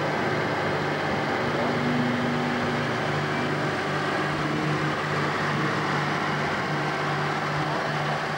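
Farm tractor engine running steadily at low speed as the tractor pulls a float slowly past.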